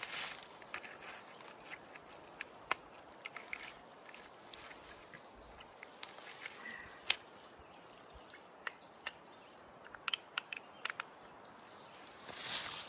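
Scattered light clicks and taps, with a bird's short trilled song twice, once about five seconds in and again near eleven seconds.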